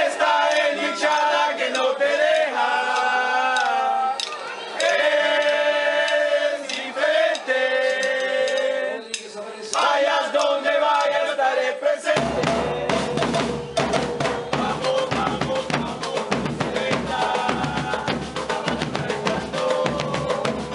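A group of fans singing a football chant together, then about twelve seconds in their band of bass drums and snares comes in with a fast, dense beat.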